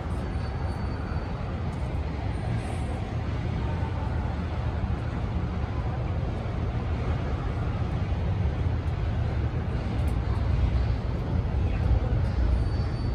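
City street traffic: a steady low rumble of passing vehicles, growing a little louder over the last few seconds.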